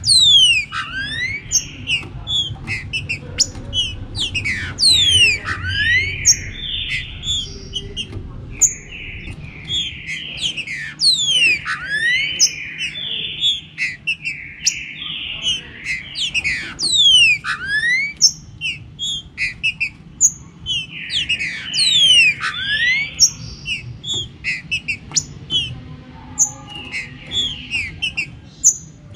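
Green-winged saltators (trinca-ferro) singing, several overlapping voices of rich whistled phrases with many sharp down-slurred notes, over a steady low background rumble.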